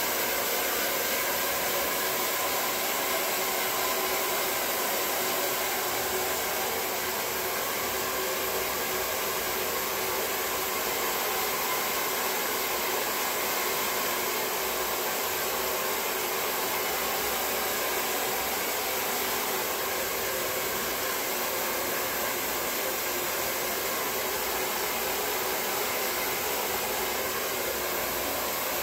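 Handheld hair dryer blowing steadily while drying wet hair: an even rush of air with a faint steady motor whine.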